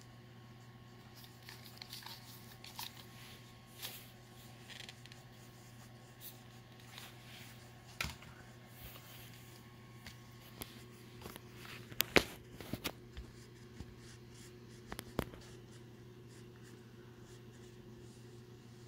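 Wax crayon scribbling on a coloring book page, with scattered light taps and clicks; the sharpest pair of clicks comes about two-thirds of the way through. A steady low hum underneath.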